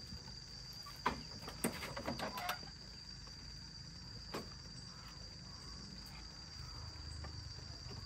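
A steady high insect buzz, with a handful of light knocks and clatters about one to two and a half seconds in and one more a little later, as a person climbs onto the seat of a small mud-caked tractor.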